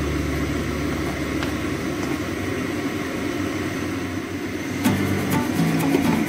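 A steady rushing noise at the stove while egg cooks in a nonstick pan; background music comes in about five seconds in.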